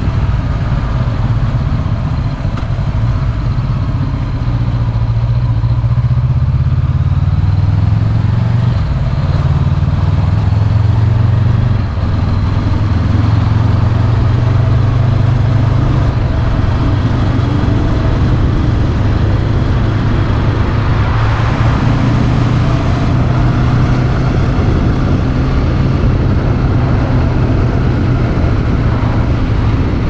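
Honda 400X's parallel-twin engine running under way, heard from on the bike, its note climbing and then dropping at a gear change about twelve seconds in.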